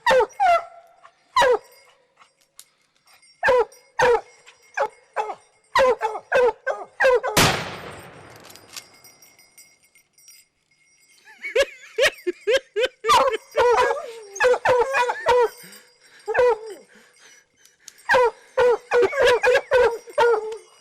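Bear hounds barking and baying in rapid bursts, with a single rifle shot about seven seconds in, fired into a black bear's rock den; the shot kills the bear. The barking stops for a few seconds after the shot, then the hounds start barking again.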